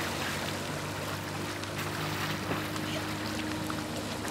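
Sea-Doo 3D personal watercraft running at a steady engine speed as it circles on the water, with an even hum and the hiss of its wash.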